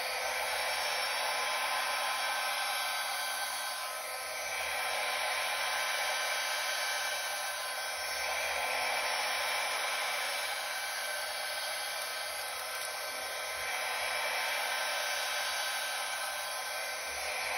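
Handheld hair dryer on its low, cool setting running steadily: an airy rush with a faint steady whine, its loudness swelling and easing gently every few seconds.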